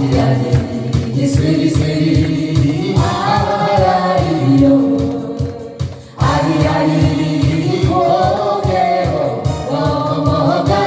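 Music: a Korean folk-song medley, with singing over an accompaniment that has a steady beat. The music dips and then cuts back in abruptly about six seconds in.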